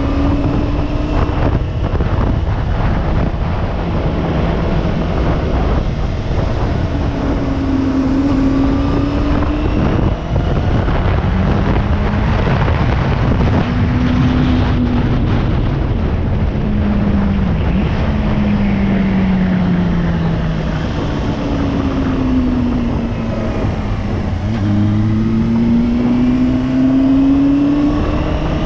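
Motorcycle engine under hard acceleration, its note climbing and dropping again several times as it shifts through the gears, over a steady rush of wind.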